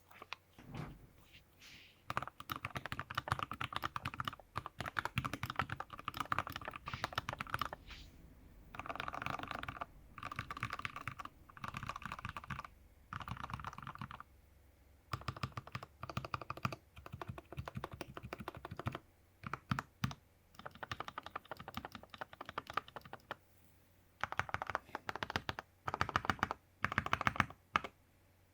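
Typing on a wooden-cased GK61XS 60% mechanical keyboard with hand-lubed Gateron Yellow linear switches and OEM-profile keycaps. The keystrokes come in quick runs broken by short pauses.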